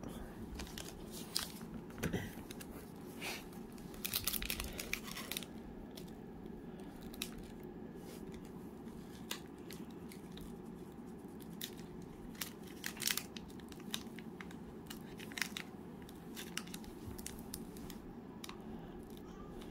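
Faint crinkling and clicking of trading-card packs and wrappers being handled, in short scattered bursts over a steady low hum.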